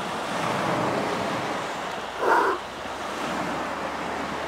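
Steady rushing noise of lake surf and wind, with a brief muffled sound about two seconds in.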